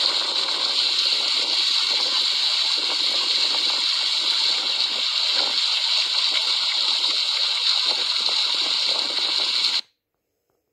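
Spring water gushing steadily from a pipe spout and splashing over a large plastic water jug held in the stream. The rushing cuts off suddenly near the end.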